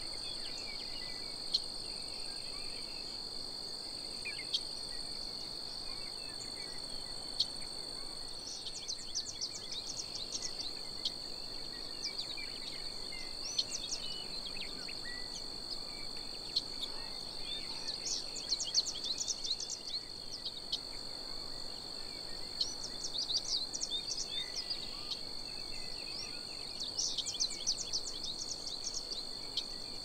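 Insect chorus holding a steady high drone, with short bursts of bird song chirps recurring every few seconds.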